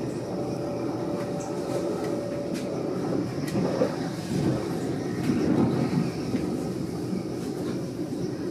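Running noise of an S-Bahn train heard from inside a moving car: a steady rumble of wheels on rail with a few faint clicks. A faint steady hum sits over it in the first few seconds.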